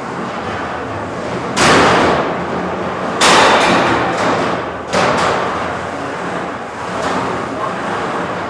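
Featherweight combat robots crashing into each other and the arena walls: three sharp, loud hits about a second and a half in, about three seconds in and about five seconds in, each fading over about half a second, over steady background noise.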